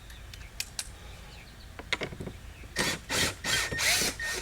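Work on a Ford Fusion's interior door panel: a few light clicks, then from about halfway a run of five short, loud, harsh rattling bursts.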